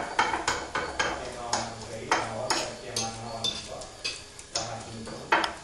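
A metal fork clicking and tapping against a plate while mashing bananas, in irregular strokes about two a second.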